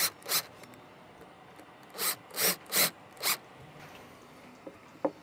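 Cordless drill boring through a hardwood (Iroko) board in short rasping bursts: two right at the start, then four more in quick succession about two to three and a half seconds in.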